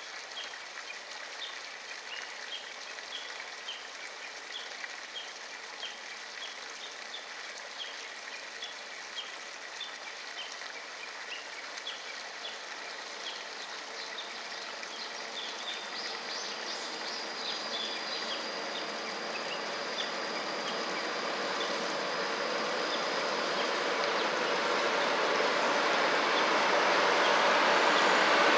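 KiHa 66/67 diesel railcar train approaching and crossing a viaduct, its sound growing steadily louder through the second half. Before it comes close, a steady hiss with a short high chirp repeating about twice a second.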